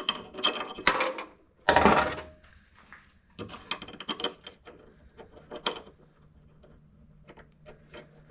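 Hand ratchet wrench clicking in short runs, with knocks and rattles of parts being handled during wiring harness removal. The loudest sound is a longer scraping clatter about two seconds in; the clicks thin out toward the end.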